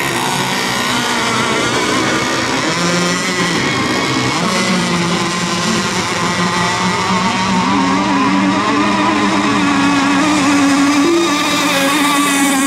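Several radio-controlled racing boats running at speed together, a steady buzz of model-boat motors whose pitches waver and overlap, one climbing higher about two-thirds of the way in.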